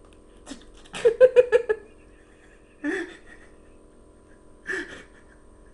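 A person giggling: a quick run of about six pitched 'ha' pulses about a second in, then two shorter voice sounds later on.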